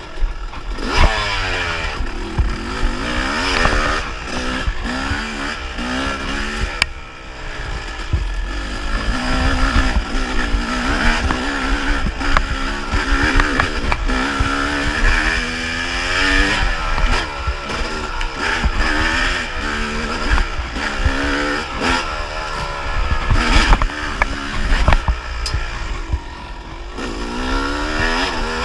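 Yamaha YZ250 two-stroke single-cylinder dirt bike engine revving up and falling back again and again as the rider accelerates and rolls off the throttle, with wind on the microphone and scattered knocks from the bike over rough ground.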